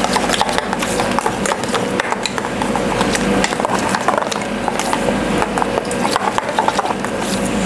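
A utensil stirring a thick mayonnaise-and-yogurt sauce in a bowl, with a quick, uneven run of clicks and scrapes against the bowl.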